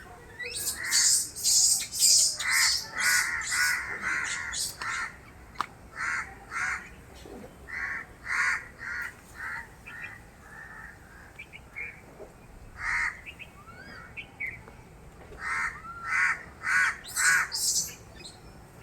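An animal calling in a long series of short, harsh calls, two or three a second, in runs broken by pauses.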